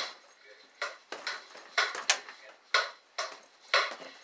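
Fists punching a fabric laundry-hamper bag hung under a wall-mounted mini basketball hoop, each hit landing sharply and rattling the hoop's rim and mount. About eight hits come in quick pairs, roughly two a second.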